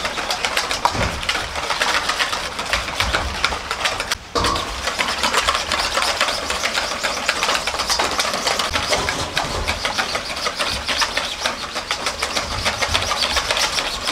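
Hand wire whisk beating duck eggs in a stainless-steel bowl: a fast, continuous run of metallic clicking and scraping against the bowl, with a brief pause about four seconds in.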